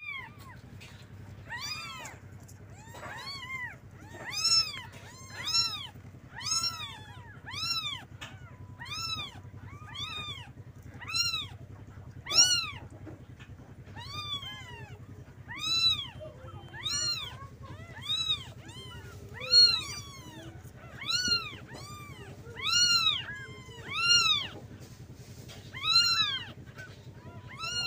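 Young kittens mewing over and over to call their mother, wanting to nurse: short high-pitched calls that rise and fall in pitch, about one a second.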